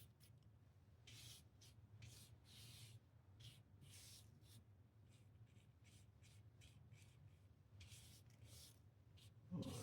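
Near silence with a few faint, brief scratching rubs, spread through the stretch.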